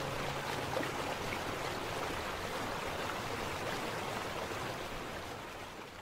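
Steady rushing of a waterfall. The last held notes of soft music die away about a second in, and the water sound fades down toward the end.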